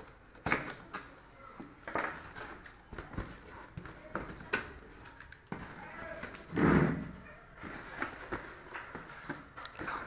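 Cardboard shipping box being torn open and handled by hand: irregular scraping, tearing and rustling of cardboard and tape, with small knocks and one louder thump about seven seconds in.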